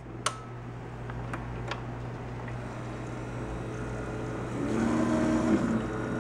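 Single-serve pod coffee maker running: a steady low machine hum with a few light clicks in the first two seconds, then a louder, steadily pitched hum that comes in about four and a half seconds in.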